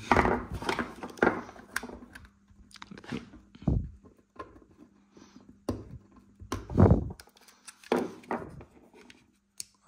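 Small metal parts of a dismantled Shimano BL-M8000 brake lever being handled, making irregular clicks, knocks and scrapes, with a louder thud about seven seconds in. A faint steady hum runs underneath.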